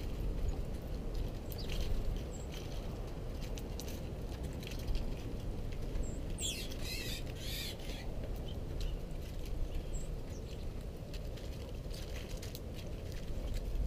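Small birds feeding on seed on a snowy porch table: irregular light ticks and pattering of pecking, a few short high chirps, and a brief scratchy burst about six to seven seconds in, over a steady low background rumble.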